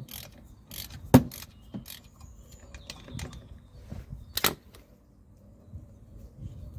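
Light clicks and two sharp metallic knocks from hand tools and parts being handled at the brake line's feed bolt on the caliper; the loudest knock comes about a second in, the other about four and a half seconds in.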